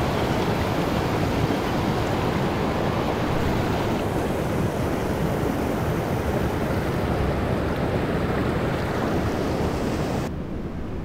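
Steady rushing of a mountain stream's flowing water. About ten seconds in, it abruptly turns quieter and duller.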